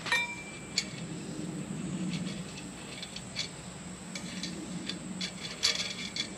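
Scattered light clicks and rattles of wood fuel pellets shifting against the stainless steel wall of a small Solo Stove as a hand pushes fatwood shavings down into them.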